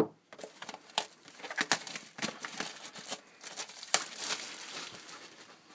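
Plastic wrapping crinkling and tearing as a sealed box of hockey cards is opened by hand: a run of irregular crackles and rustles.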